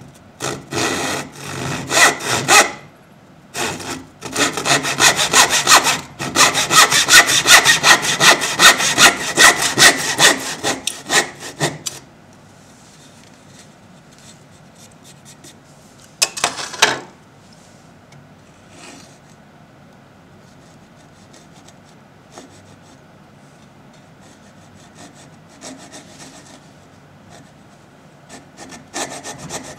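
A Stanley FatMax back saw cutting across a clamped wooden board, fast rasping push-pull strokes about two a second, stopping briefly then running on for about twelve seconds. A single short loud scrape comes about halfway through, and near the end a coping saw starts short strokes into the wood.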